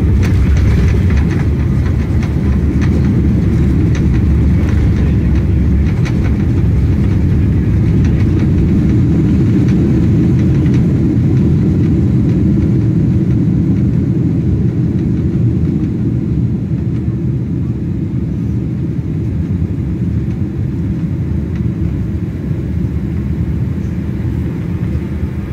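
Boeing 767 jet's landing rollout heard from inside the cabin: a loud, steady rumble of engines and wheels on the runway, with rattling in the first several seconds. The rumble slowly eases as the jet decelerates after touchdown.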